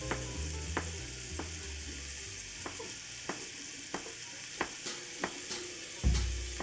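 Frozen chunks of offal (horumon) frying in a cast-iron skillet: a steady sizzle with scattered sharp pops of spitting fat.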